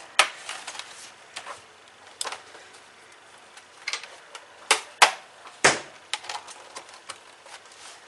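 Plastic snap-fit clips of an Acer Aspire E15 laptop's case clicking and snapping loose one after another as the bottom cover is pried apart along its seam. The loudest snaps come about five seconds in.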